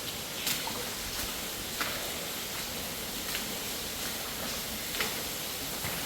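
Steady rushing of a waterfall inside an abandoned mine, with several scattered sharp clicks.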